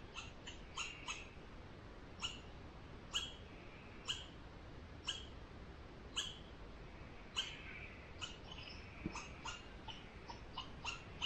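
Short, sharp chirps from a small animal, repeated about once a second, then coming faster, about three a second, over the last couple of seconds.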